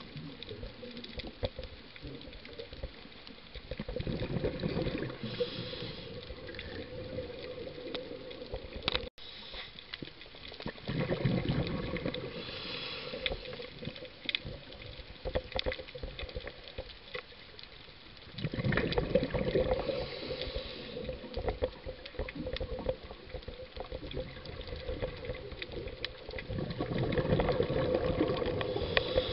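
A scuba diver breathing through a regulator underwater: a steady background hiss, with a gurgling rush of exhaled bubbles about every seven to eight seconds, four times.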